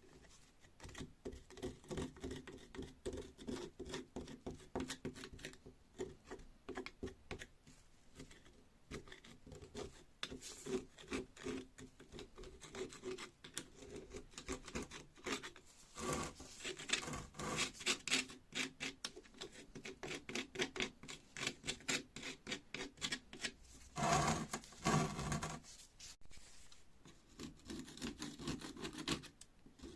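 Rapid, repeated scraping and rubbing strokes on rusty metal, like filing or brushing, with a louder ringing stretch near the end.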